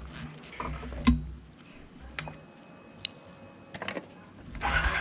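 Scattered small clicks and handling noise as a motorcycle rider adjusts his helmet and gear, with one sharp click about a second in. A low rumble fades out about a second and a half in.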